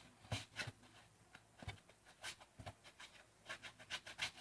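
Faint, irregular scraping and rubbing strokes, something being scraped off by hand.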